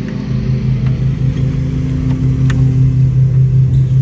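An engine running steadily, a low hum pulsing at an even rate, with a faint click about two and a half seconds in.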